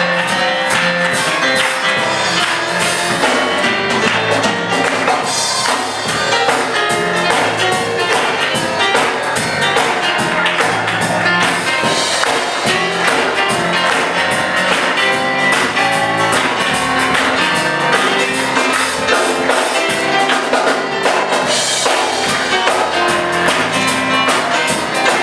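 Live church worship music: a band playing with guitar, drums and tambourine, with singing.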